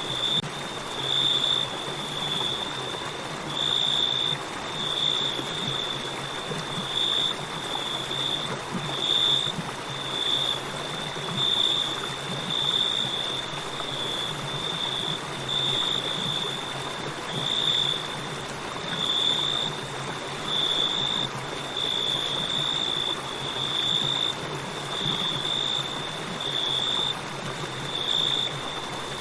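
Crickets trilling at a single high pitch, swelling and fading roughly once a second, over the steady rush of a flowing river.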